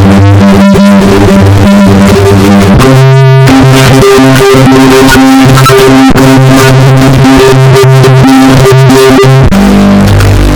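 A sneeze sample run through a vocoder effect, turned into very loud synthesizer-like chords. The chords shift pitch every second or so, with a brief wavering warble about three seconds in.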